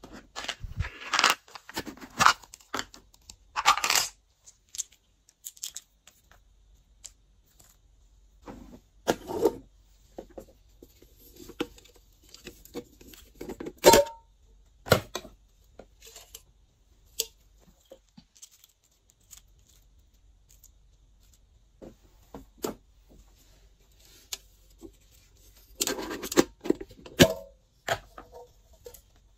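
Small plastic cups being handled, tipped and tapped out over a glass dish of slime: irregular clicks, taps and rustles, with a sharp knock about halfway through and a cluster of louder taps near the end.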